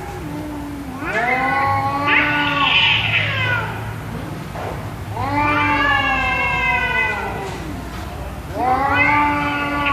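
Domestic cat yowling in long drawn-out calls, three of them about two seconds each, each rising and then falling in pitch.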